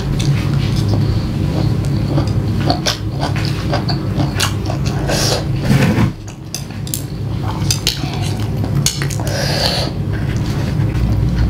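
Wooden chopsticks clicking and scraping against a ceramic plate as spicy instant noodles and vegetables are picked up, with chewing in between.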